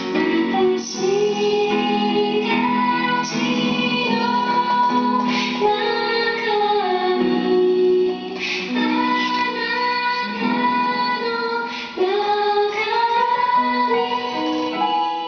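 A song on the soundtrack: a woman singing a slow melody over an instrumental backing.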